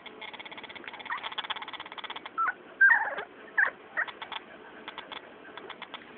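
Young cocker spaniel puppies, about three and a half weeks old, giving a handful of short, high squeaks and whimpers, the loudest about three seconds in. A fast run of light clicks comes before and after them.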